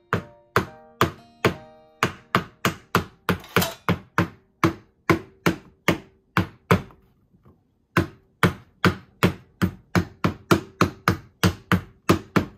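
Wooden rolling pin beating a peeled burdock root against a wooden cutting board, cracking it open for tataki gobou: a steady run of wooden knocks, about two to three a second, with a short pause a little past halfway.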